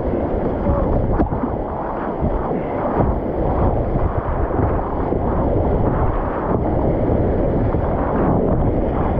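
Whitewater rapids rushing around a racing kayak as it runs them, with a few sharp paddle splashes and wind noise on the camera microphone.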